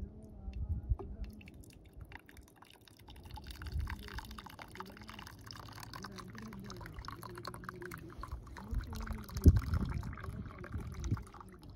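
Hot milky tea poured from a stainless-steel camping pot through the slots of its strainer lid into a steel mug: a splashing trickle that starts about two seconds in and runs on until just before the end. A brief low thump comes about three-quarters of the way through.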